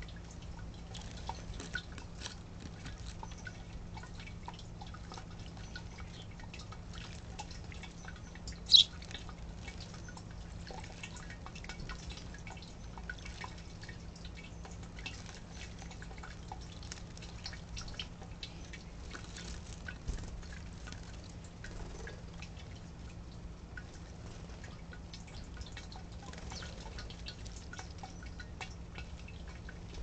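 Water in a bird bath splashing and dripping as house sparrows bathe, with many small patters throughout. One sharp, louder click comes a little under nine seconds in. A steady low hum runs underneath.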